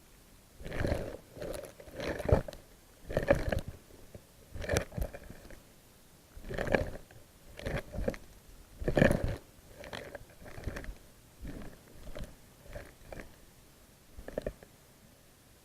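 Irregular knocks and crunching clicks picked up underwater, coming in uneven bursts about one to two seconds apart.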